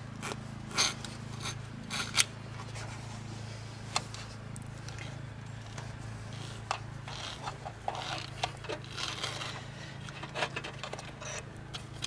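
Scattered scrapes, rubs and clicks of parts being handled by hand, with two sharper clicks about one and two seconds in, over a steady low hum.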